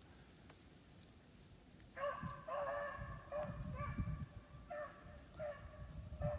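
Beagles baying on a rabbit's track, a run of drawn-out calls starting about two seconds in.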